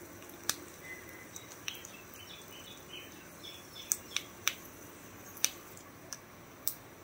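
Mustard seeds popping in hot oil in a small steel kadai during a tempering with urad dal and dry red chillies. About ten sharp pops come at irregular intervals, the sign that the oil is hot and the seeds are spluttering.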